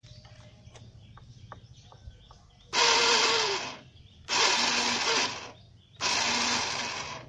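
Scooter's electric starter motor spinning freely three times, about a second each, a high whirr that never catches or turns the engine over: the starter is not engaging the crankshaft, the sign of a worn, slipping one-way starter clutch.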